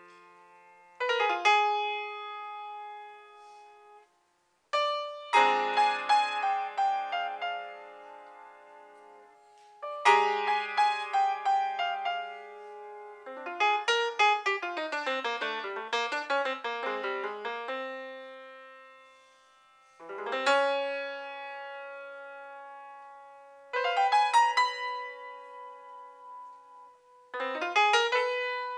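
Solo grand piano played live in a free-jazz style: sudden bursts of quick, dense runs and chords, each left to ring and fade, with short breaks between phrases and one near-silent pause about four seconds in.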